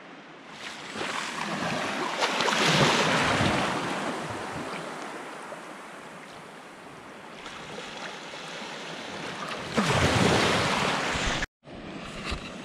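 Surf washing in over sandy shallows, swelling loudest about two to three seconds in and again near the end, with a brief break just before the end.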